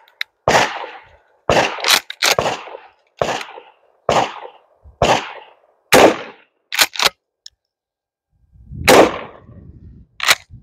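Mossberg Maverick 88 pump-action 12-gauge shotgun firing Aguila 1¾-inch short-shell buckshot: a string of sharp shots about a second apart, with short clacks of the pump action among them and a heavier blast near the end.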